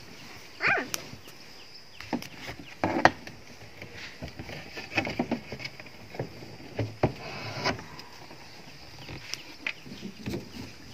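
Irregular knocks, clicks and scraping as a hinged bed panel is lifted, folded over on its hinges and set down inside a car, with rustling of bedding.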